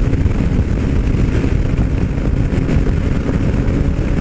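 Yamaha MT-09 Tracer's 847 cc inline three-cylinder engine running steadily at highway cruise, about 140 km/h, with heavy wind rush on the microphone.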